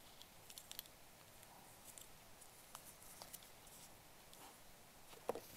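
Near silence with a few faint, scattered clicks and light rustles from the wristwatch and its packaging being handled.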